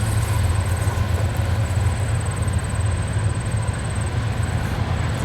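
Train running with a steady low diesel rumble.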